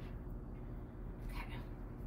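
Wooden spoon working bread dough in a mixing bowl, with a short scrape about one and a half seconds in, over a steady low hum.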